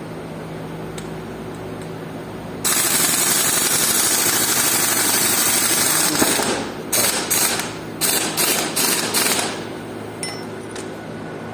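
Pneumatic impact wrench working on the differential housing bolts: one long run of about three and a half seconds, then several short bursts.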